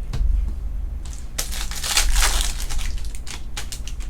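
Foil wrapper of a trading card pack crinkling as it is handled and opened, followed by several sharp ticks and clicks of card handling.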